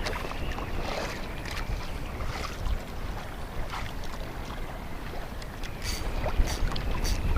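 Strong wind buffeting the microphone with a steady low rumble, with short splashes or slaps of choppy water scattered through it.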